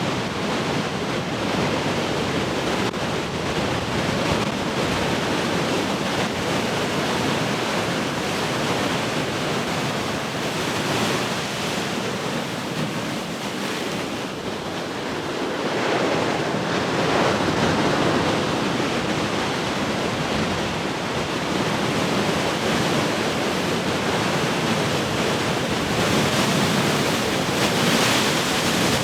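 Large ocean waves breaking in a continuous surf roar that swells and eases as sets come in, with wind in the air.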